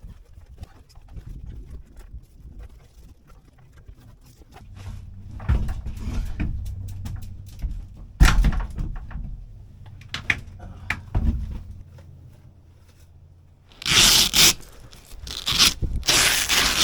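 Camp gear being handled: a series of thumps and knocks, then, starting about three seconds before the end, loud rustling and scraping.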